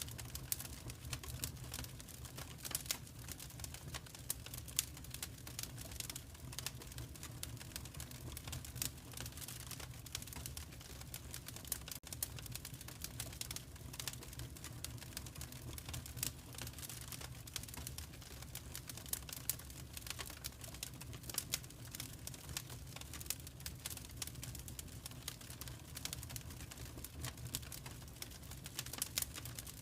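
Wood fire crackling in a fireplace: dense, irregular small pops and snaps over a steady low rumble.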